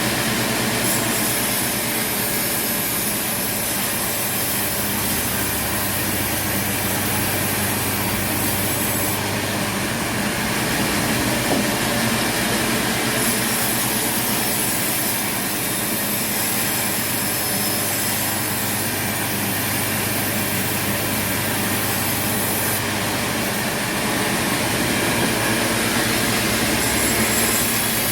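Sawmill machinery running steadily, a saw cutting through wood with a constant machine hum underneath.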